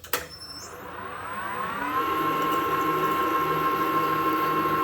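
ERL-1340 metal lathe switched on with a click, its motor and spindle whine rising in pitch over about two seconds as it spins up, then holding steady during a threading pass at 400 RPM in O1 tool steel.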